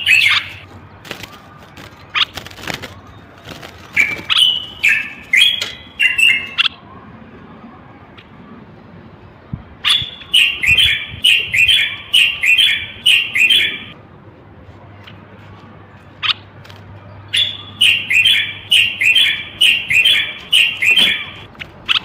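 Male common bulbul singing: short, loud chattering phrases, then two runs of quick repeated notes at about two a second, with pauses of a few seconds between. A few sharp clicks fall in the gaps.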